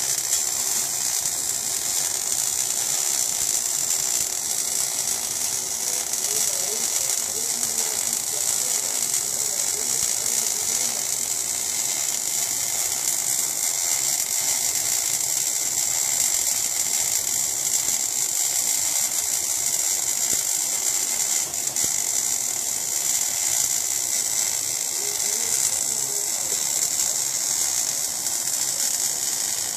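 MAG (gas metal arc) welding arc crackling and sizzling steadily as the wire feeds into the weld pool.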